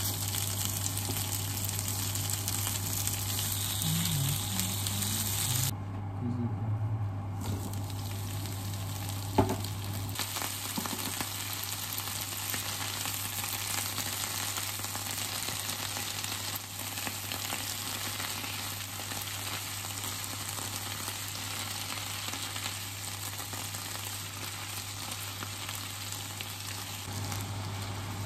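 Sliced pork, then napa cabbage and carrot, sizzling steadily as they are stir-fried in a non-stick frying pan, stirred with chopsticks, over a steady low hum. A single sharp knock about nine seconds in.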